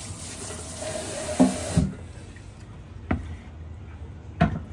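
A kitchen tap runs with an even hiss and is shut off sharply about two seconds in. A few knocks sound along the way, the loudest about a second and a half in, and more come near the end as the wooden cutting board is lifted and handled.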